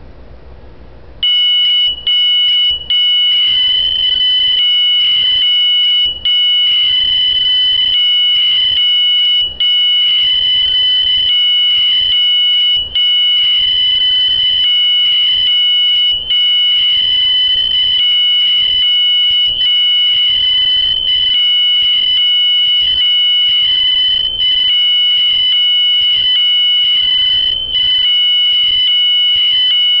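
Smoke alarm sounding a continuous high-pitched tone that starts about a second in, with brief dropouts. It is set off by smoke from a melted, burning computer power cord.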